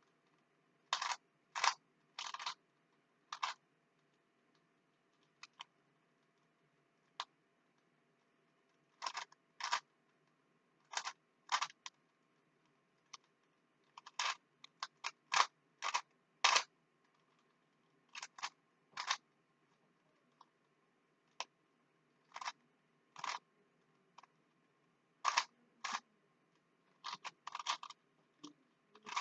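Rubik's cube faces being twisted by hand: short bursts of plastic clicking, one turn after another in irregular spurts with pauses between.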